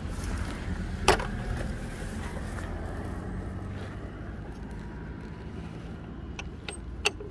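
An engine running steadily with a low hum that slowly fades away. A sharp click about a second in and another near the end.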